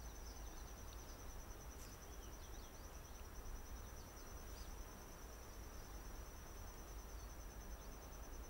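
Faint outdoor nature ambience: a steady, high-pitched, finely pulsing insect trill over a low hiss, with a few faint chirps about two seconds in.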